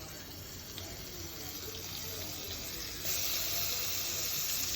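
Steady sizzling hiss from a hot pan that jumps suddenly louder and brighter about three seconds in.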